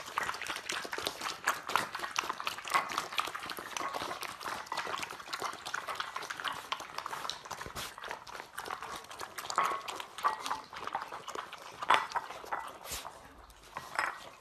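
Puppies eating from ceramic bowls: a dense run of wet lapping and chewing clicks, with a few louder knocks against the bowls, easing off near the end.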